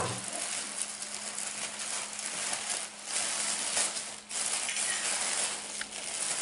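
Red gift tissue paper rustling and crinkling continuously as hands pull it apart and open it up, over a faint steady low hum.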